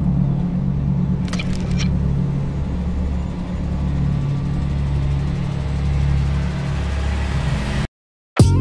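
A steady low rumble, with a short rattle about a second and a half in. It cuts off abruptly to silence near the end, followed by a sharp hit.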